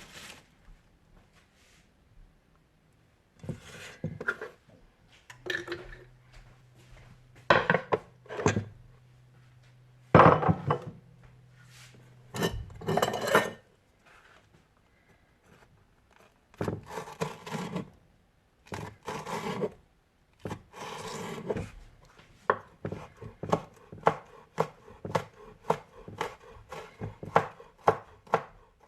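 Knife chopping on a cutting board: scattered groups of strokes, then a run of quick, even chops near the end.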